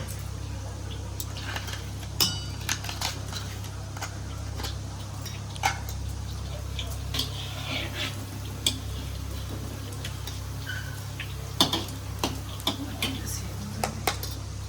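Metal kitchen utensils clinking and clattering against dishes in irregular, scattered knocks, with a few sharper clinks, over a low steady hum.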